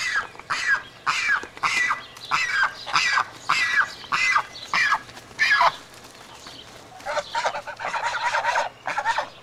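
Domestic geese honking. About ten loud calls come in the first six seconds, each dropping in pitch. After a short lull a faster run of shorter, chattering calls follows.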